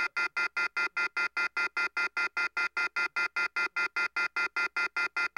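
Telephone off-hook warning tone: a rapid, even beeping of several high tones together, about five beeps a second, signalling a phone line left off the hook.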